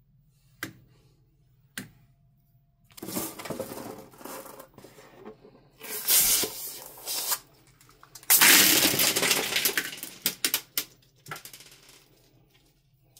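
Small hard plastic beads pouring out of a cut balloon and clattering onto a plastic tray, in several rattling bursts, loudest about eight to ten seconds in. Two sharp clicks come in the first two seconds, and a few single clicks follow the main pour.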